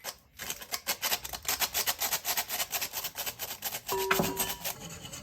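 Fast, regular rubbing or scraping strokes, about six a second, with a brief ringing tone about four seconds in.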